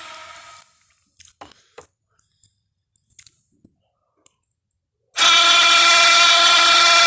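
Tarbosaurus roar sound effect: a loud sustained pitched roar fades out at the start, then a few faint clicks, and a second loud roar cuts in about five seconds in.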